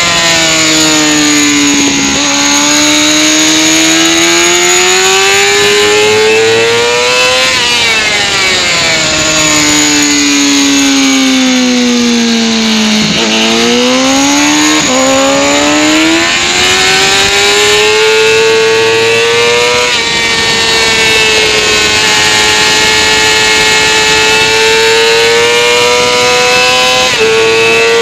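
Race motorcycle engine at full track pace, its pitch climbing then dropping sharply at each upshift, sinking through a long slowdown about halfway and climbing again through further shifts. Heavy wind rush on the microphone runs under it.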